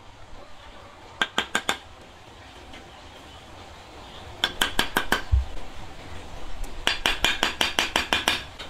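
A metal kitchen utensil clinking rapidly against cookware in three quick runs of ringing strikes, the last run the longest.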